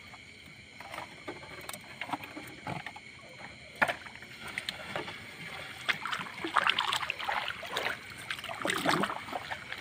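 A gill net hauled by hand over the side of a small boat, water dripping and splashing off the mesh. Scattered light clicks and knocks come as the net and the caught sardines slide over the gunwale, busier in the last few seconds.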